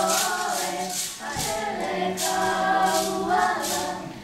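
Group of voices singing a Hawaiian mele, accompanied by kālaʻau hula sticks clicking together in an even beat about twice a second; the singing and clicking dip briefly near the end.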